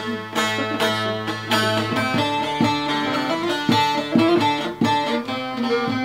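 Bağlama (Turkish long-necked saz) played solo with a plectrum: a quick run of plucked and strummed notes over a steady low drone.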